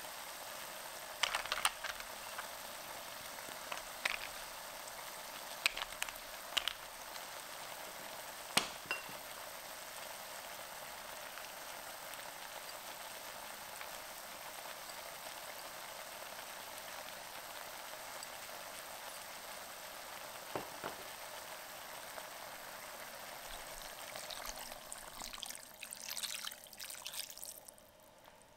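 Wine and clam juices simmering in an enameled cast-iron braiser with a steady sizzle. Several sharp clicks in the first nine seconds as cherry tomatoes and capers drop in among the clams, and near the end a splashing pour of water into the pot, after which the sizzle cuts off.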